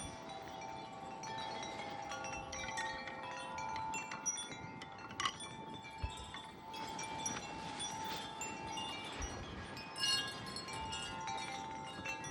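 Wind chime ringing constantly in strong wind gusts, many tones sounding and overlapping, with a sharper strike about five seconds in and again near ten seconds.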